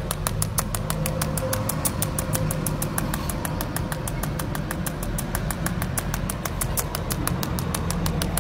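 Pulsed TIG welding arc of a Jasic TIG 300S in cold-weld mode, ticking evenly about seven times a second, over a steady low drone.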